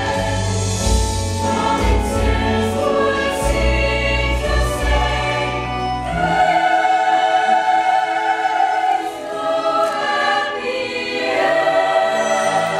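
A choir singing long, held chords as background music. The low bass drops out about six seconds in and the higher voices carry on.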